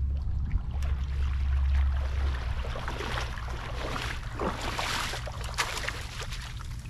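Water splashing and sloshing as a person wades through knee-deep water and swishes a landing net through it, most of it from about three seconds in. Wind rumbles on the microphone in the first half.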